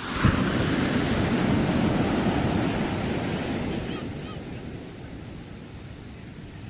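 Ocean wave breaking suddenly and rushing in as loud surf, then fading over the next few seconds to a lower steady wash.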